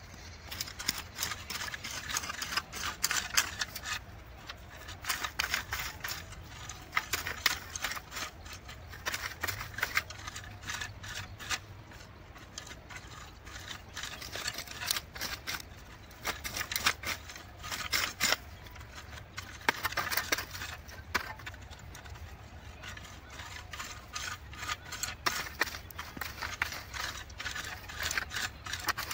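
A long-handled hand tool raking and scraping through dry, cloddy soil in repeated strokes. Each stroke is a short gritty rattle of clods and crumbs, and they come every second or two.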